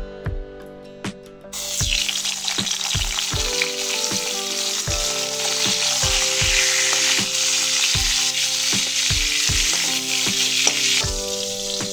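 Turmeric-coated eggplant halves sizzling in hot oil in a steel wok, with the spatula turning them. The sizzle starts about a second and a half in as the pieces go into the oil, and dies down near the end.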